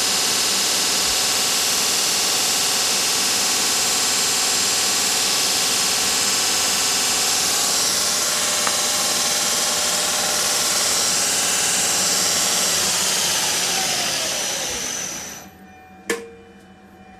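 Shop-built 2x48-inch belt grinder, driven by a 2 hp three-phase motor through an inverter (VFD), running steadily at speed with no workpiece on the belt. Near the end it winds down in a falling whine and stops, followed by a single sharp click at the control box.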